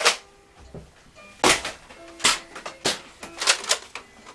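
Toy foam-dart blasters firing in a string of sharp clacks, about six of them at irregular intervals.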